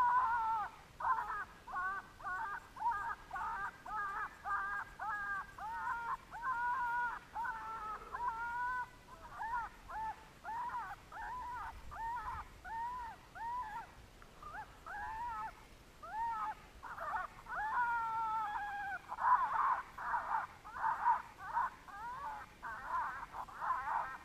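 Predator call playing a looped animal distress sound: short, high, yelping cries repeating a few times a second, slowing for a while and then coming faster and louder near the end.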